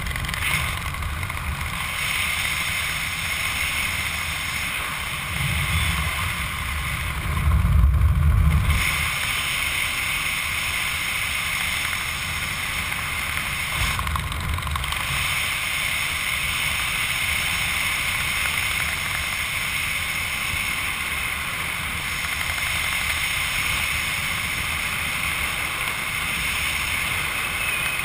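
Wind rushing over a helmet camera's microphone during a descent under an open parachute, a steady hiss with louder low buffeting gusts about five to nine seconds in and again briefly around fourteen seconds.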